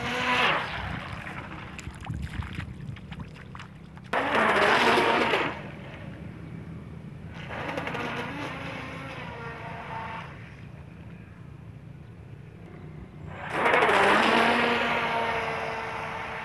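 RC model boat with a 3800 kV brushless motor making high-speed passes: a whining motor with spray hiss that swells and fades several times, its pitch bending as it goes by. It is loudest about four seconds in and again near the end.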